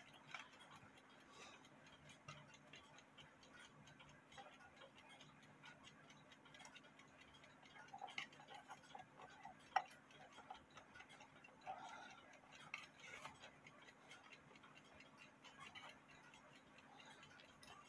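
Faint ticking of a 1957 Endura banjo clock movement, with small metallic clicks as nuts are fitted onto its brass housing. One sharper click comes about ten seconds in.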